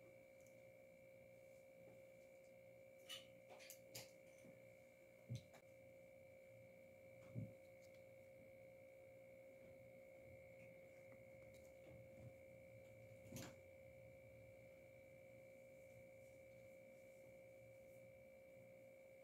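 Near silence with a faint steady whine of two pitches throughout, broken by a few soft knocks and rustles as the dolls and fleece blanket are handled.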